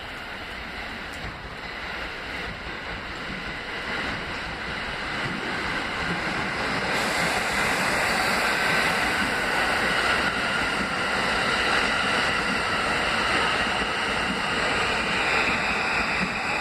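R160A subway train running past on the track: a steady rush of steel wheels on rail that grows louder over the first several seconds as the train approaches, then holds steady as the cars go by, with a faint high whine above it.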